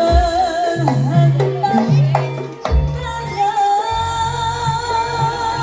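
Live East Javanese jaranan ensemble music: drum strokes and low, sustained bass notes under a held, wavering melody line.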